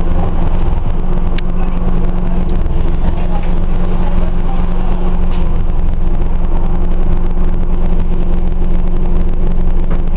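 Scania OmniCity single-deck bus's diesel engine running at a steady note as the bus drives along, heard from inside the passenger saloon together with low road rumble.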